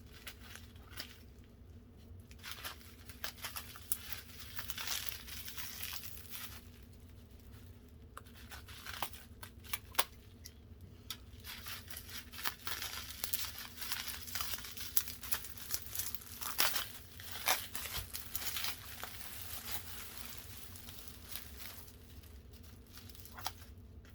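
Packing wrap being torn and crinkled by hand, in irregular bouts of rustling and sharp crackles, as candles are unwrapped from a shipment.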